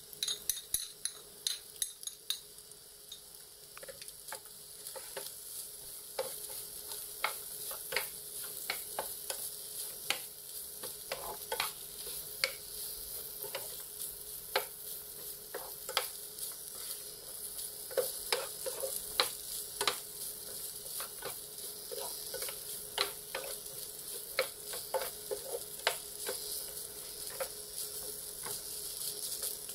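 Pumpkin fried rice stir-frying in a frying pan: a steady sizzle, broken by frequent taps and scrapes of a wooden spatula against the pan as the rice is turned over.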